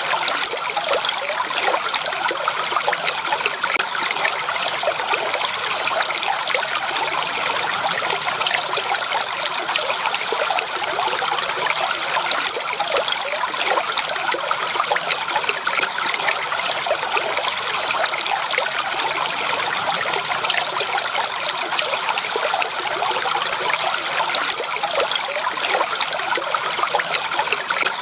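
Running water, a steady trickling and babbling stream that keeps on without pause.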